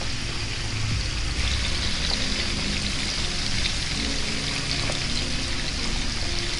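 Garlic, lemongrass and shrimp paste sizzling steadily in coconut oil in a frying pan on a low flame, stirred with a spatula. The sizzle grows brighter about a second and a half in.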